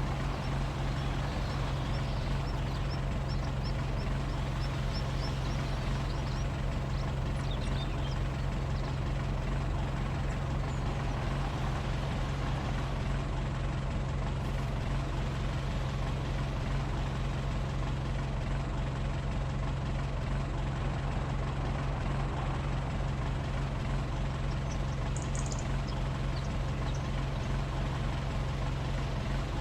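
A heavy farm-machinery engine running at a steady speed, a constant low drone with no change in pitch or level.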